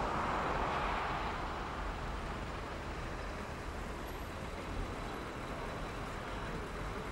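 A heavy vehicle's engine running as a steady low rumble, with a rushing hiss that swells and fades in the first second or so.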